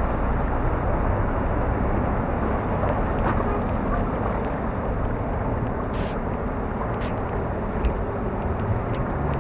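Cars driving slowly through deep floodwater: a steady wash of water churning and sloshing, with a low engine rumble underneath and a few brief clicks.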